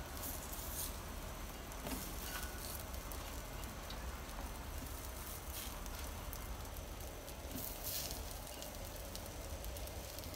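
Marinated head-on shrimp sizzling faintly on a hot grill mat as they are laid down one at a time, with a few brief soft taps.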